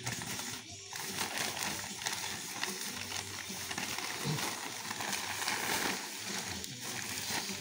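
Wrapping paper and packaging being handled, crinkling and rustling continuously.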